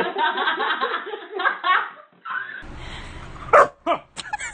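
A woman laughing in quick, rapid bursts for about two seconds. Then a low steady rumble follows, with two short, loud bursts near the end.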